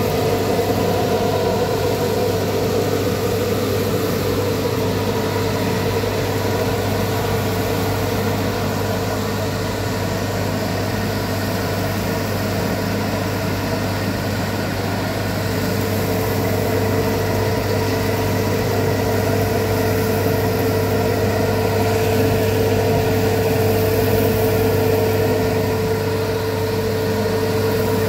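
Coffee roaster running with a steady mechanical hum and a constant whine, as its stirring arm sweeps the beans round the cooling tray. The whine is stronger at the start and again from about halfway.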